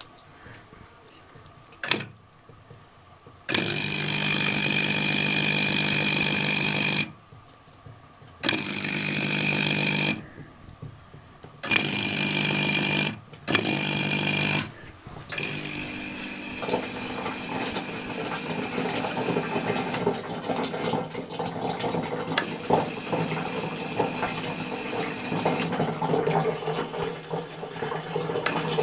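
Small aquarium-type submersible pump, switched by a water-level relay, starting and stopping four times in short stretches of one to three seconds, each a steady hum with a high whine. It then settles into a quieter, steady run with the sound of moving water.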